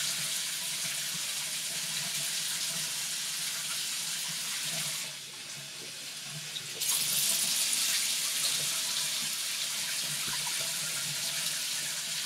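Water running from a bathroom tap into a sink, a steady rushing hiss. About five seconds in it goes quieter and duller for a couple of seconds, then comes back louder.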